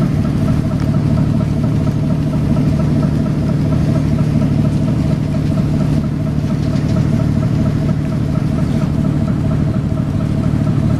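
Wichmann 3ACA three-cylinder two-stroke diesel engine of 300 hp running steadily with the boat under way, a deep even drone with a faint regular pulsing over it.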